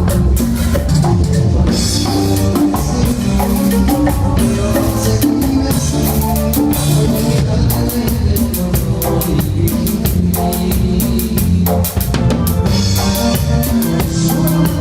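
Live band playing at full volume during a sound check: a drum kit keeps a steady fast beat to the fore, over bass and other instruments.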